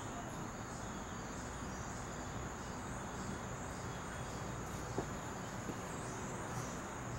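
Steady high-pitched insect chorus, a constant trill over outdoor background hiss, with a single light knock about five seconds in.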